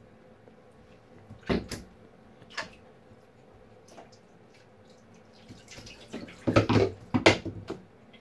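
Macaques splashing in bathwater in a tub: a couple of sharp splashes about a second and a half in, then a burst of louder splashing in the last few seconds.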